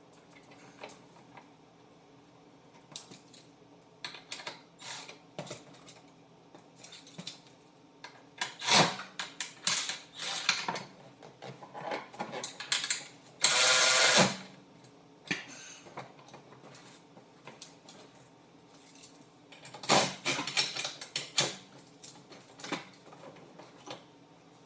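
Hand tools and metal seat hardware being worked while armrests are bolted on: scattered clicks and clanks, with one short burst of ratcheting a little past halfway.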